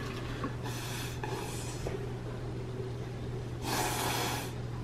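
A young child blowing hard through a plastic drinking straw: two short, soft puffs about a second in, then one longer, stronger blow near the end.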